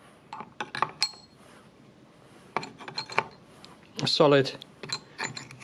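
Weight discs clicking and scraping against one another as more are slid onto a stack, in two short bursts of knocks and a few more near the end.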